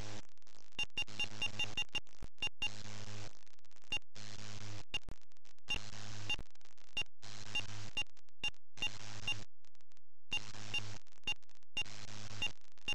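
Electrical hum and hiss on an EasyCap capture dongle's audio line. It cuts in and out in blocks every second or so, with small regular ticks.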